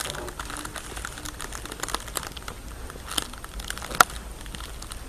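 Rustling and crinkling handling noise with many small scattered clicks and one sharp click about four seconds in, over a steady low hum.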